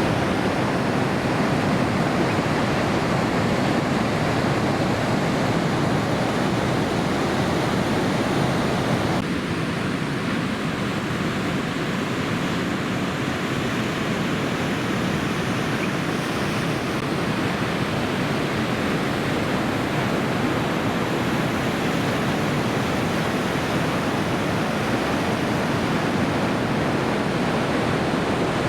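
Steady rush of heavy ocean surf, breaking waves and white water from typhoon swell, dipping slightly for a stretch about nine seconds in.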